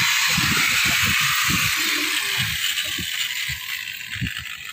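An electric power tool on the steel deck job whirs steadily and then fades away over the last couple of seconds, with irregular low knocks underneath.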